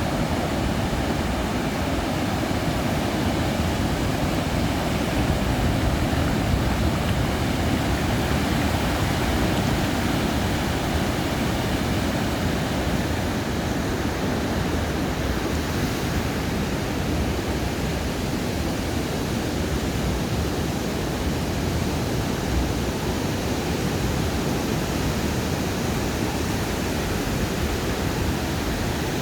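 Ocean surf washing onto a sandy beach: a steady, even rush of water noise with little rise and fall.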